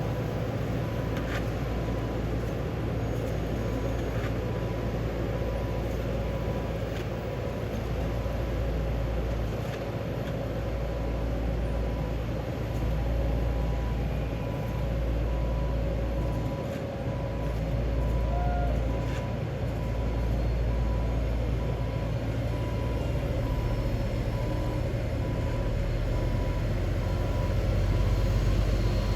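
Heavy diesel road-paving machinery running steadily with a deep rumble, while a vehicle's reversing alarm beeps over it at an even pace.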